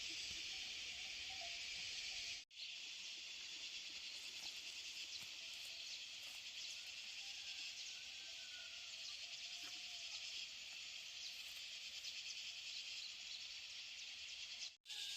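Steady, high insect chorus outdoors, unbroken except for two brief cut-outs, about two and a half seconds in and near the end.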